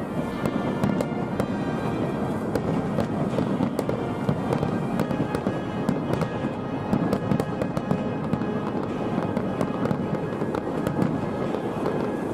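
Aerial fireworks going off in a dense, continuous barrage of crackles and pops, with music playing along.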